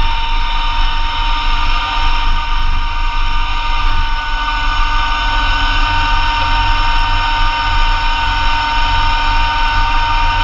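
Massey Ferguson GC2300 compact diesel tractor running steadily with its PTO-driven Blizzard B48 snowblower engaged, a steady whine riding over the low engine rumble.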